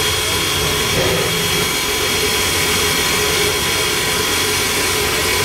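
Queensland Rail C16 class steam locomotive C16 106 standing in steam, giving off a steady, loud hiss of escaping steam with a constant high tone in it.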